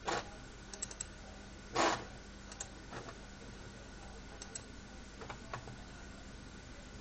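Scattered mouse clicks, with one louder, longer noise about two seconds in, over the steady hum of a running desktop PC.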